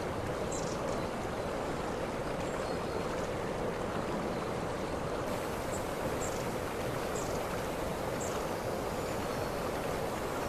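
Waterfall water rushing steadily. A few short, high chirps sound over it, several between about six and eight seconds in.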